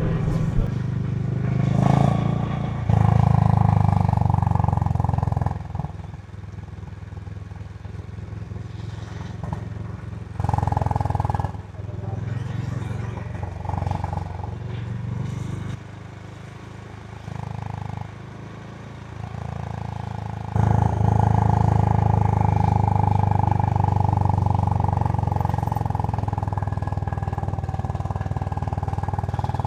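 Honda H'ness CB350's air-cooled single-cylinder engine running through its stock exhaust, louder in stretches a few seconds in, around 10 seconds and again from about 20 seconds on, quieter in between.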